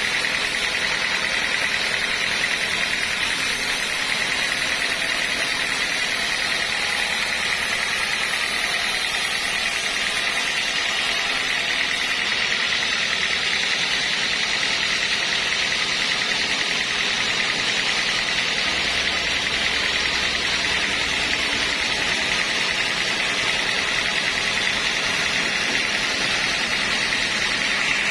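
Sawmill machinery running steadily, a continuous mechanical hum and hiss with no breaks.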